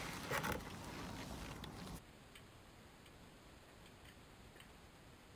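Near silence with faint ticking; the faint background drops away almost completely about two seconds in.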